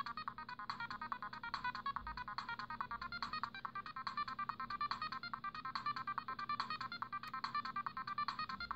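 Siemens C60 mobile phone playing one of its built-in ringtones: a fast, steady run of short electronic notes, several a second.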